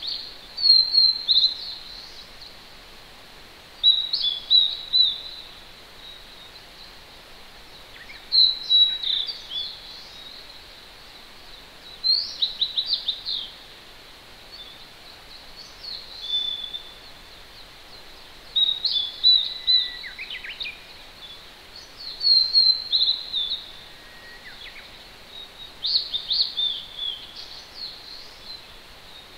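A songbird repeating short, high song phrases of quick notes, about a second long, every three to four seconds. A few fainter, lower calls from another bird come in between, over the steady rush of a distant mountain stream.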